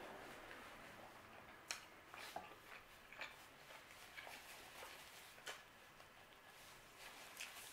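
Faint mouth sounds of a person chewing pizza: a few soft, scattered clicks and smacks, with a paper napkin rustling against the mouth near the end.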